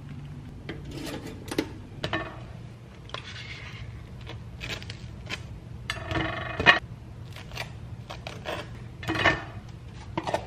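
A table knife scraping cream cheese across toasted bagel halves, with short knocks and clinks of the knife and bagel against a ceramic plate. The scrapes and knocks come in separate strokes, the loudest about six seconds in and again near nine seconds.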